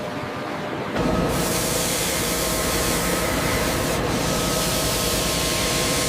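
Industrial panel-sanding machine running: a steady, loud hiss of abrasive on wood over a faint machine hum, which suddenly gets louder about a second in and then holds steady.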